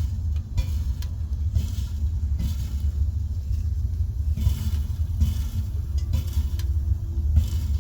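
Water heater making a loud, steady low rumble, with irregular bursts of crackling and a few clicks on top.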